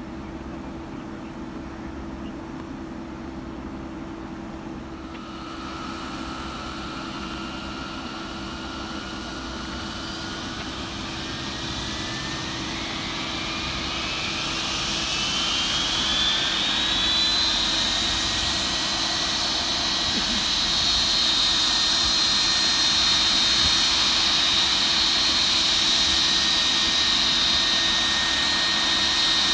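Jet engine of a Tui Boeing twinjet airliner starting up. A whine comes in about five seconds in, climbs steadily in pitch and loudness for about twelve seconds, then settles into a steady high whine as the engine reaches idle.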